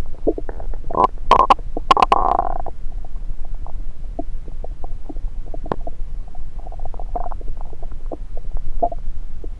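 Stomach and bowel gurgling heard through a stethoscope pressed on the belly. A run of louder gurgles and sharp pops comes about one to three seconds in, then scattered small pops and bubbling clicks.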